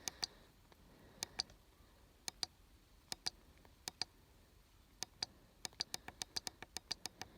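Small plastic buttons on a trail camera being pressed to step through its menu and recorded clips, each press giving a click pair of press and release. The presses come about once a second at first, then quicken to a rapid run of clicks near the end.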